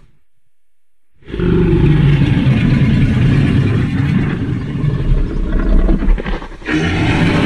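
Giganotosaurus film creature vocal effect, a deep, loud growl-roar. It starts about a second in after a short silence and lasts about five seconds, then breaks off briefly before another call begins near the end.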